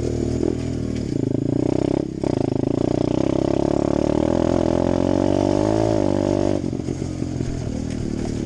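Apollo 125cc single-cylinder four-stroke dirt bike engine under throttle while riding, with a brief break about two seconds in, then a sustained pull with the pitch creeping slightly upward. Near seven seconds in the throttle closes and it drops to a rougher, lower running.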